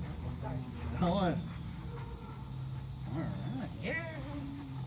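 Steady chorus of insects trilling high-pitched without a break, with a few brief snatches of men's voices between.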